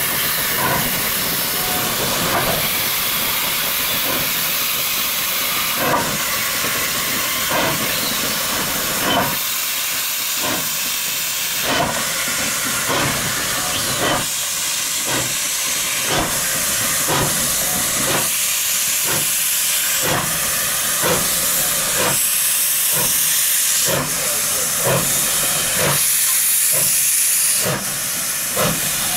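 Steam locomotive (Texas State Railroad #30, a 1917 Baldwin 2-8-2 Mikado) hissing steam steadily while moving slowly, with an even beat of exhaust chuffs at about one a second.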